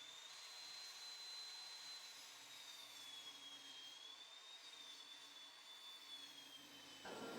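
Near silence: a faint steady hiss with a thin, high whine that wavers slightly in pitch.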